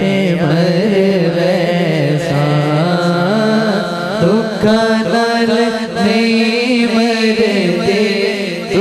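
A male naat reciter singing a Punjabi naat into a microphone, long drawn-out phrases that glide slowly up and down in pitch over a steady low drone.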